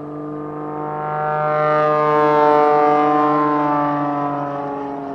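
Pitts Special aerobatic biplane's piston engine and propeller droning as it flies past overhead, swelling to its loudest about halfway through and then fading away.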